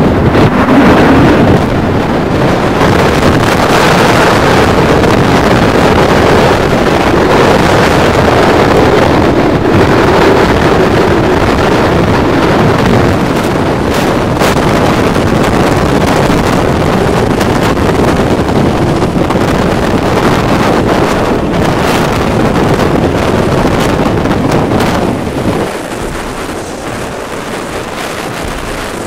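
Hurricane-force Bora wind blasting over the microphone: a loud, continuous rush of wind noise that drops somewhat near the end.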